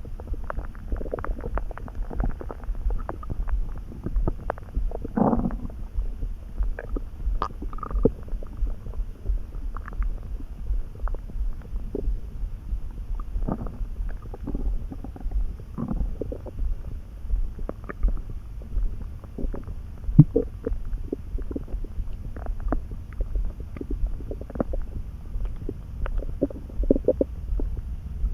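A person's stomach and gut rumbling and gurgling: a steady low rumble under many short, irregular gurgles, with a longer drawn-out gurgle about five seconds in.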